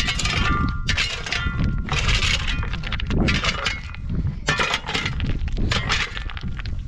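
Repeated clattering and clinking of hard objects, with a brief metallic ring in the first second or so.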